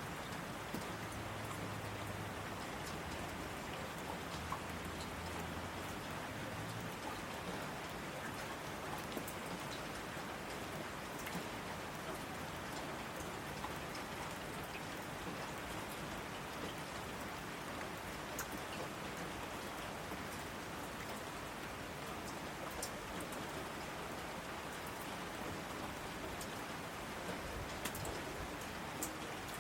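Steady rain falling, an even hiss with individual drops ticking on a surface. A faint low hum sits under it for the first several seconds.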